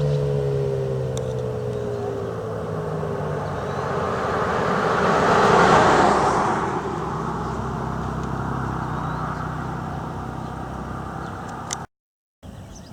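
Federal Signal 2001-SRN outdoor warning siren winding down at the end of its test signal: its falling tone fades out over the first two seconds or so. A car then passes by, loudest about six seconds in.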